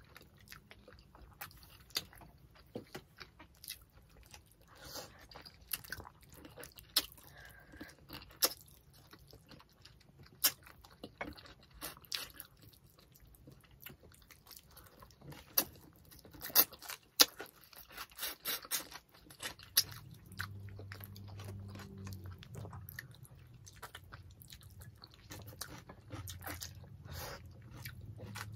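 Close-miked eating sounds of tilapia in coconut milk with rice: chewing, with many irregular sharp wet mouth clicks and smacks. A low hum comes in about two-thirds of the way through.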